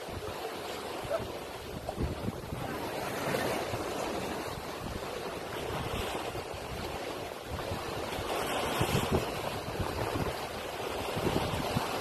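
Mediterranean waves breaking and washing over the rocks at the foot of a rocky shore, the surf swelling and easing every few seconds. Low wind rumble on the microphone underneath.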